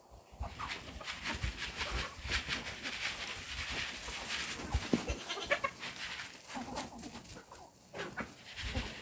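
Goats bleating, with a busy stretch of rustling and clattering in the first half.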